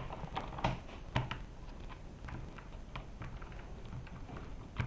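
Faint, scattered clicks and taps of hands handling an electric skateboard's wheel and a skate T-tool while starting a wheel change.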